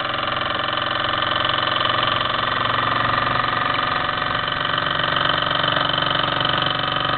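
Mamod TE1A live-steam model traction engine running: a rapid, steady chuffing and whirring from its little steam cylinder and spinning flywheel.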